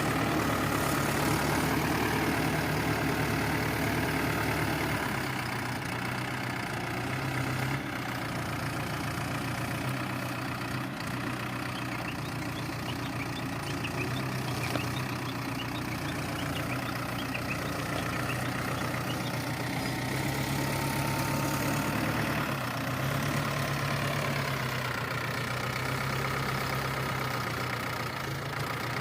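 Heavy diesel engine of a farm or construction machine idling and running steadily, its low note shifting a couple of times.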